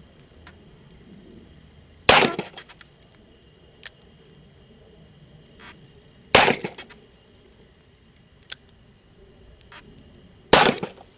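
Three handgun shots about four seconds apart, each followed by a short echo, with a few faint clicks in between.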